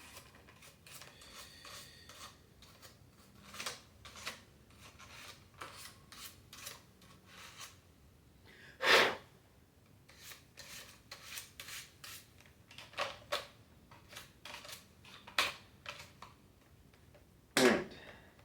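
Toothbrush bristles scrubbing hair and grime off a Dyson cordless vacuum's plastic parts in short, irregular strokes, with two louder bumps about halfway through and near the end.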